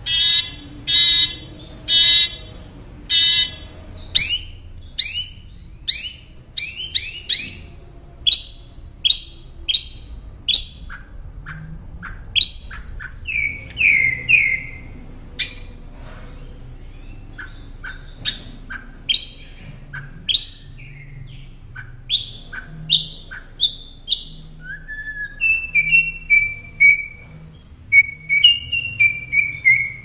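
Caged northern mockingbird singing. It opens with four harsh calls about a second apart, then runs into a long, varied song of quick downward-sweeping whistled notes, with phrases repeated several times. Near the end come rapid high chirps.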